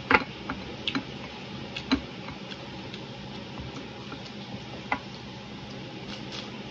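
Crispy fried lumpia (spring roll) being scooped through a bowl of shredded red cabbage and onion: a few sharp clicks and crackles, the loudest right at the start. A faint crunch comes from a bite near the end.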